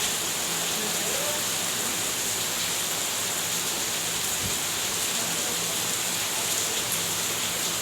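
Heavy rain falling, a steady hiss with a few faint drip ticks.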